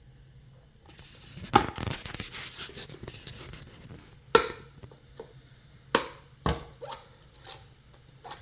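Wire cutters snipping through plastic zip ties on a scooter tire: a series of sharp snaps at irregular spacing, the loudest about a second and a half in.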